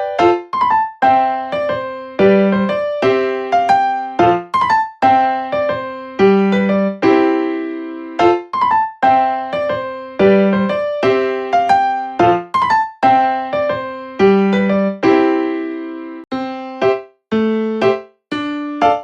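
Background music: a piano-like keyboard playing a light melody over chords, each note struck and fading, at a steady pace.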